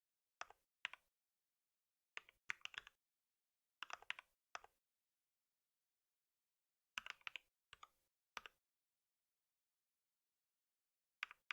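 Computer keyboard typing in short bursts of a few keystrokes each, with dead silence between the bursts.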